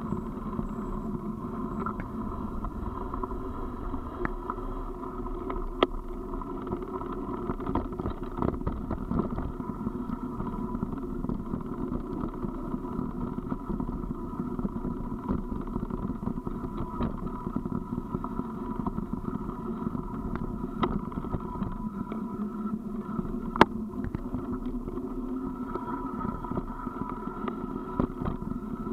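Tyres rolling down a gravel road with a steady rushing noise, broken by scattered sharp clicks and knocks from bumps, one louder knock about three quarters of the way through.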